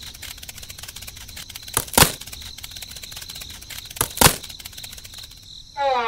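Crickets chirping steadily, broken by two sharp double knocks, one about two seconds in and one about four seconds in.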